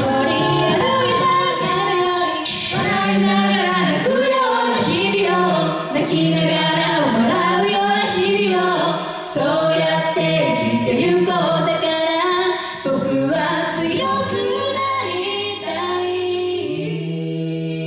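Live a cappella group, a female lead voice over mixed male and female backing voices and no instruments, singing a Japanese pop song through a PA. Near the end the voices settle onto a long held chord.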